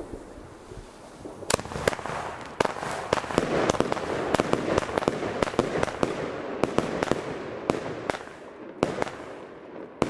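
Argento Red Thunder 16-shot 20 mm salute battery firing, starting about a second and a half in. It is a quick, irregular string of sharp, loud bangs from titanium salutes over the crackle of white strobe mines. The shots come thickest in the middle and thin out toward the end.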